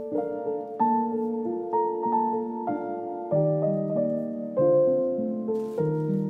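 Background music: a slow melody of sustained piano notes with chords underneath.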